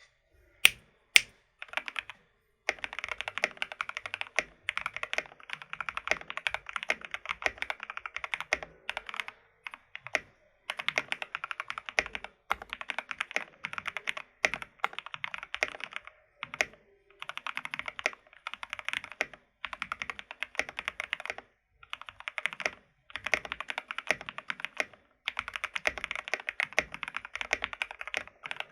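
A GK61X mechanical keyboard with Gateron Cap Milky V2 switches being typed on fast, in runs of several seconds broken by short pauses. Two single sharp clacks come right at the start.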